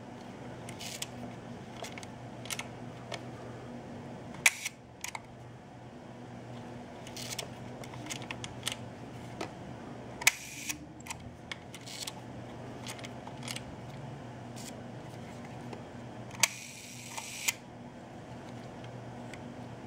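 Mechanical clicks from a 1959 Meopta Optineta 35mm camera's leaf shutter and controls being cocked and fired over and over. Two exposures last longer: about half a second around ten seconds in and about a second near the end, each a whir between an opening and a closing click, typical of the shutter's slow speeds running.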